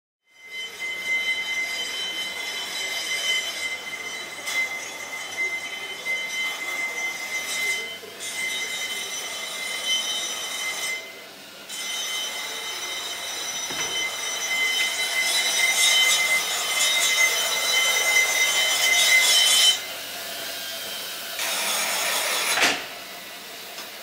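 Flexible-shaft rotary grinder whining at high speed as it grinds and smooths the ports of an aluminium motorcycle cylinder head by hand. The high-pitched whine keeps going, dipping in level now and then and breaking off briefly a few times.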